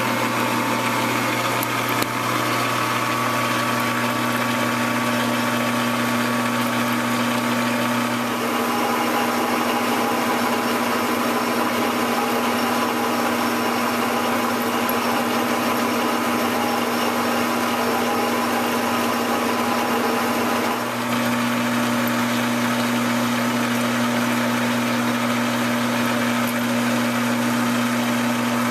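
Metal lathe running steadily while turning down a rod to diameter, with the motor and gears humming and the tool cutting. The hum changes in tone from about a third of the way in until about two-thirds through, then returns.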